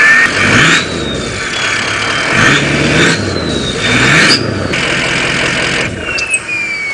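Ford 6.0L Powerstroke V8 turbo diesel revving up several times, its reconditioned Garrett turbo whistling high above the engine. The whistle climbs with each pull and slides steadily down near the end as the revs fall away.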